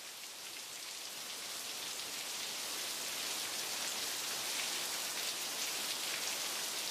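Rain falling, an even wash of drops that grows louder over the first few seconds and then holds steady.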